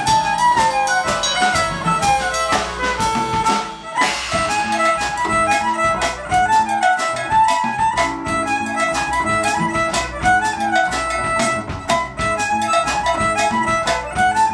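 Violin playing a fast jig melody over piano, upright bass and a drum kit laying down an Afro-Cuban beat.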